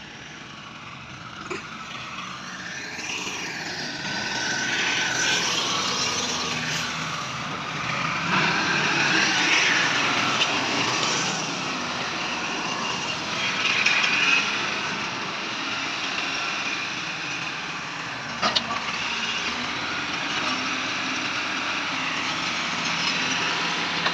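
Massey Ferguson tractor engine running under work, growing louder after the first few seconds, with a couple of sharp knocks.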